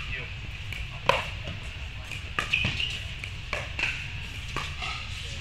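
Pickleball paddles hitting a plastic pickleball in a rally: a sharp pop about a second in, then several softer taps as the players trade shots at the net.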